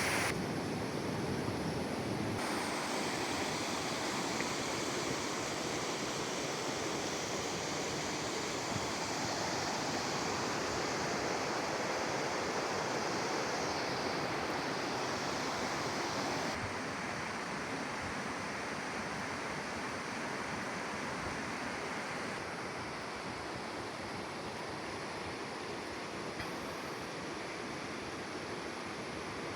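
Steady roar of a waterfall's rushing water. The sound changes abruptly a few times and is a little softer over the second half.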